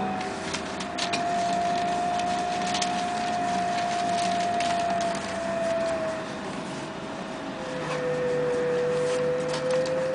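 Electric whine of a Bogdan trolleybus's traction drive, heard from inside the passenger cabin. It holds one steady pitch, fades about six seconds in, and comes back at a lower pitch about two seconds later, with light clicks and rattles from the cabin.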